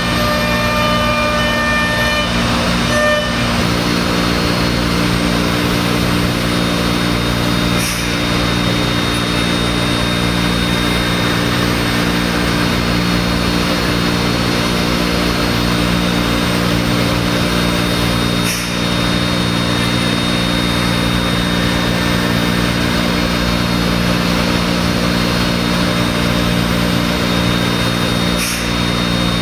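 5-axis CNC router spindle running steadily as its bit mills a laminated wooden block, giving machine noise with a faint high whine. The sound dips briefly three times.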